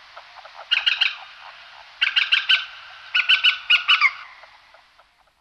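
Common moorhen calling: three quick runs of short, clipped notes, about one, two and three and a half seconds in, over a faint steady hiss.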